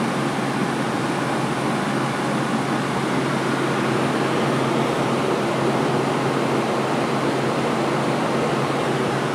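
Cooling fans of several PCs whose Nvidia graphics cards are folding at close to 100% load: a steady, even whir with a faint low hum.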